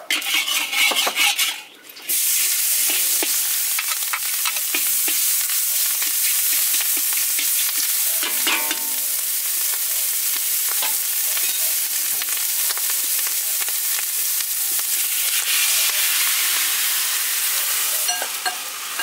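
A metal spatula scraping and stirring in a wok for about two seconds, then steady sizzling of food frying in hot oil. Near the end the sizzle changes as bánh xèo batter is poured into the wok.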